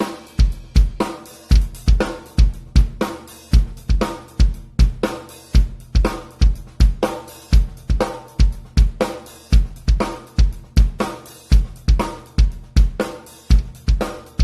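Drum kit played in a steady groove: bass drum and snare under a pair of 14-inch Meinl Soundcaster Custom hi-hats, with an even, unbroken beat.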